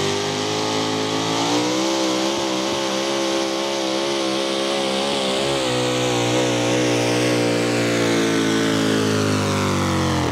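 A 4x4 pulling truck's engine running at high revs. Its pitch climbs about a second and a half in, wavers while it is held high, and sinks toward the end.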